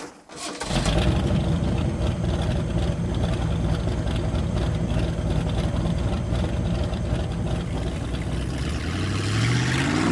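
An engine starts up under a second in and idles with a steady low running note. Near the end its pitch rises as it revs up.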